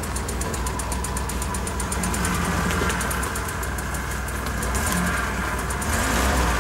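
UAZ-469 off-roader's engine running steadily, without revving.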